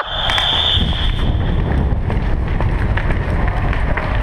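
Steady rumbling of movement and wind noise on a body-worn action camera as the wearer moves about, with a high steady beep that stops about a second in.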